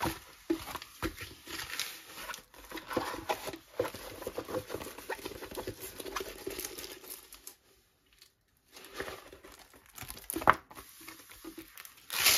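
Crinkling and rustling of paper and the clear plastic film on a rolled diamond-painting canvas as it is handled, unrolled and the film peeled back, broken by a short pause about eight seconds in and one sharp crackle about ten seconds in.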